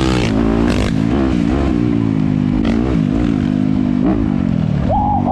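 Dirt bike engine running under throttle on a trail, its pitch climbing and dropping again and again as the rider opens and closes the throttle.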